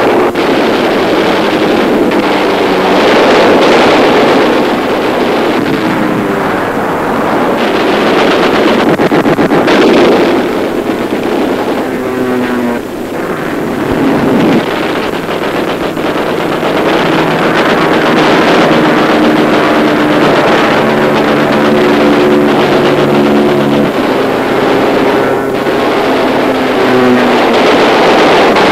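Newsreel soundtrack of dubbed propeller-aircraft engine roar mixed with an orchestral score. The engine noise dominates the first half; in the second half the music's held notes, changing about once a second, come to the fore.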